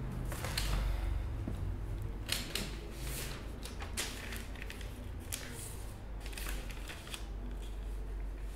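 Hands moving and sorting objects on a tabletop: irregular rustles and light clicks, some sharper than others, over a low steady hum.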